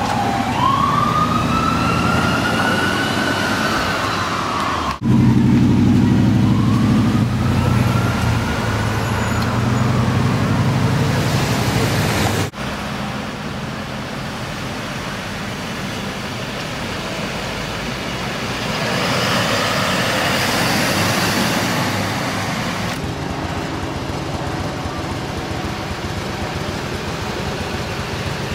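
Emergency vehicle siren wailing, rising and falling in pitch, for the first few seconds. The sound then changes abruptly to a heavy vehicle's engine rumbling, with a siren fainter behind it. After another abrupt change about twelve seconds in, there is steady traffic noise.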